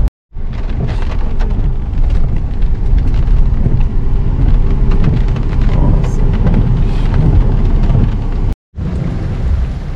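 Heavy rain pelting the car and camera, with a deep steady rumble underneath and a patter of drop hits. The sound cuts out briefly at the start and again near the end.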